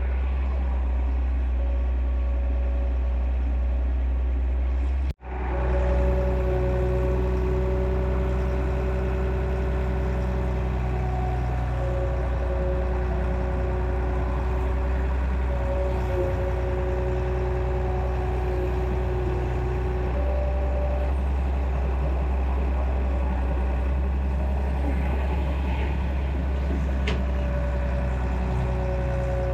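Excavator's diesel engine running steadily, with a low hum and a constant high whine. The sound cuts out for an instant about five seconds in, then carries on.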